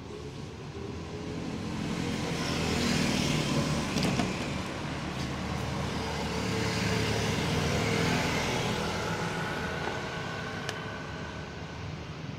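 A motor vehicle passing close by, its engine and road noise swelling over a couple of seconds, holding, then fading away.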